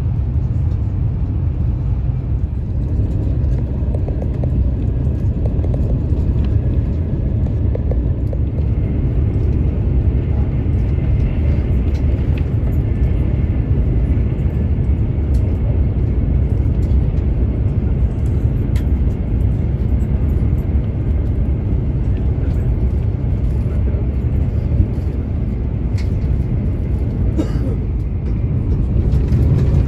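Cabin noise inside an IRYO Frecciarossa 1000 high-speed train running at speed, around 300 km/h: a steady low rumble.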